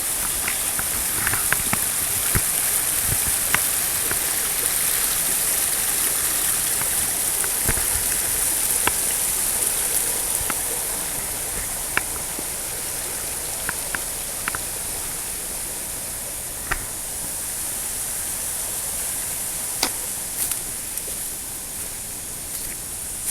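Small jungle waterfall: a steady rush of falling water, with a few short clicks and knocks scattered through it.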